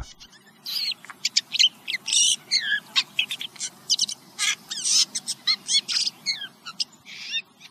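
Steller's jay whisper song: a long, rambling run of short, varied notes, with clicks, chirps and sweeping whistles mixed together. This is the song that male jays use during courtship.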